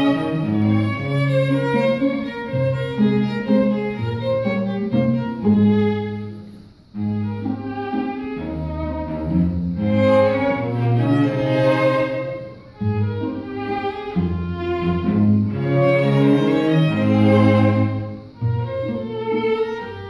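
String quartet of two violins, viola and cello playing live: many quick, short bowed notes over changing low cello notes, with brief breaks in the sound about seven, thirteen and eighteen seconds in.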